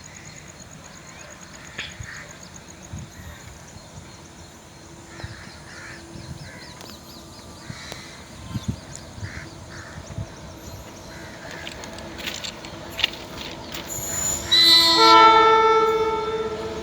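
Indian Railways WAG-9H electric locomotive's horn sounds once near the end: a loud blast of about two seconds with several pitches at once, then a lower tone carrying on. It is the loco pilot's acknowledgement to the person at the trackside. Before it there is only a quiet background with scattered faint clicks and calls.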